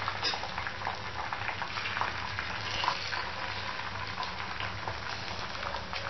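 Beaten egg frying in oil on a hot iron tawa while a spatula spreads it: a steady sizzle with small crackles.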